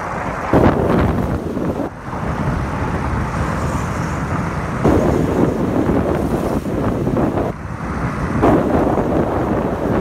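Wind buffeting the microphone on a moving motor scooter: a loud rushing noise that rises and falls in gusts, surging about half a second in, again near the middle and near the end.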